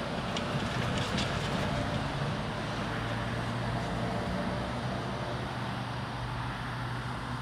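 Road traffic crossing a railroad grade crossing: cars driving over the tracks, with a few light ticks early on and a steady low hum that swells a few seconds in.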